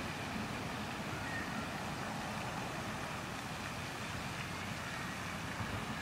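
Steady outdoor background noise: an even hiss with a low rumble and no distinct events.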